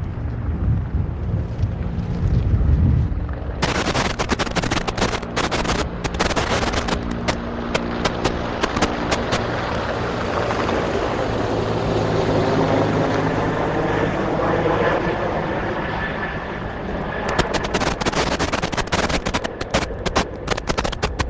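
An engine running steadily with a low hum, and a dense, irregular crackle over it from about four seconds in.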